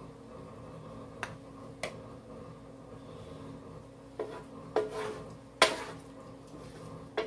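A utensil knocking and scraping in a metal electric skillet while cooked steak and onions are scooped out: about six sharp clacks, the loudest a little past halfway.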